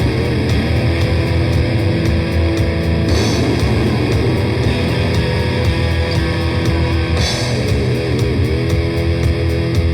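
Raw old-school grindcore: heavily distorted guitar and bass riffing over a fast, even drum machine beat. The guitar holds notes, with a wavering bend a little before the end.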